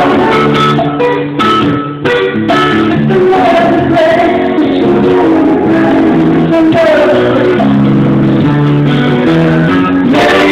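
Loud live band music: a man sings lead into a microphone over guitar accompaniment.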